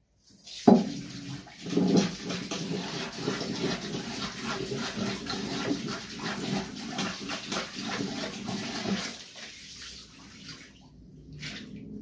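A metal kadhai being scrubbed at the sink to get burnt-on saag off: rapid rough scraping strokes with water. It eases off and goes quieter about three-quarters of the way through.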